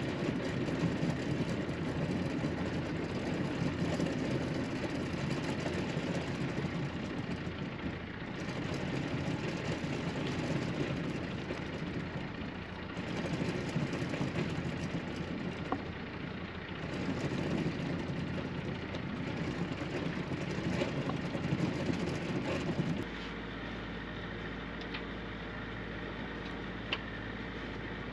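Sailboat's engine running steadily under way on calm water, with a slow rise and fall in level. About 23 seconds in it changes abruptly to a quieter, steadier hum.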